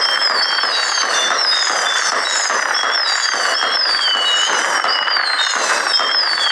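Fireworks crackling in a dense, unbroken stream, with high whistling tones that slide down in pitch over and over.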